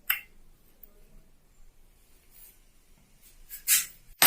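Short scrapes of small metal parts rubbing as the take-up lever guard of an industrial sewing machine is handled and pushed back into place: one brief scrape at the start and two louder ones near the end.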